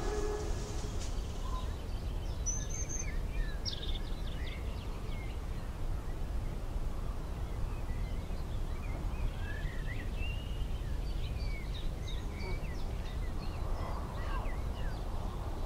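Birds chirping and singing in many short, scattered calls, over a steady low rumble of outdoor background noise.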